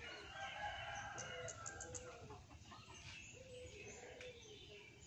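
Rooster crowing: one long call over the first two seconds, followed by softer, shorter chicken calls.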